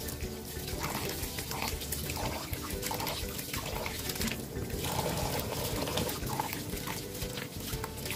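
Tap water running into a plastic bowl of rice while a hand swishes, rubs and squeezes the grains to rinse them, with splashing and many small clicks and patters from the wet rice.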